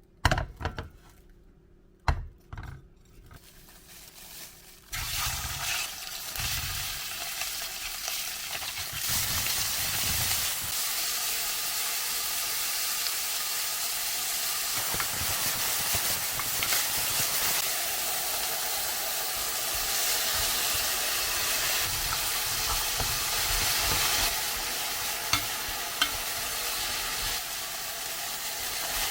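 Food sizzling as it fries in a hot pan, a steady hiss that starts about five seconds in and grows fuller a few seconds later. A few sharp knocks of utensils come before it, and a couple of light clicks near the end.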